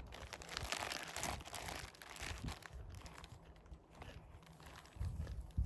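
Plastic snack bag crinkling as it is handled, crackling most in the first couple of seconds and then quieter. A low thud near the end.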